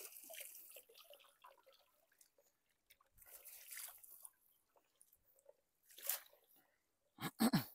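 Water dripping and splashing off a long collapsible mesh shrimp-and-fish trap net as it is lifted out of a river, in a few short bursts. A loud thump near the end.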